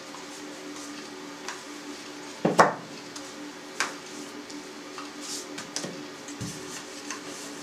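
Scattered light knocks and clatter of hand work with a metal vareniki mould and a wooden rolling pin on a wooden board, the loudest knock about two and a half seconds in, over a faint steady hum.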